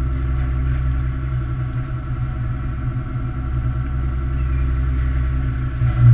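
A fishing boat's machinery running with a steady low drone and hum while a net of fish is hoisted aboard.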